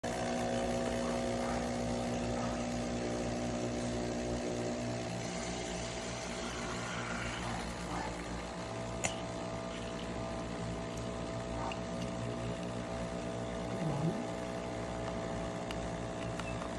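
Capsule coffee maker's water pump running with a steady hum while it brews.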